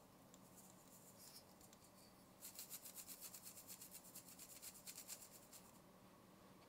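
Fine salt sprinkled onto a mound of flour and semolina in a wooden bowl: a faint, rapid rasping patter of grains lasting about three seconds in the middle. Before it comes a fainter soft hiss of semolina flour pouring.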